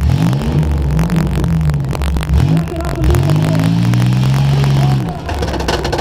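Demolition derby car's engine revving up and down in quick surges, then a longer rising rev about halfway through that drops away near the end, over crackling static from a wet microphone.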